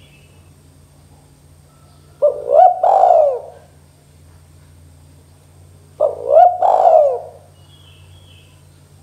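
Spotted dove cooing: two phrases about four seconds apart, each a short rising note running into a longer falling coo.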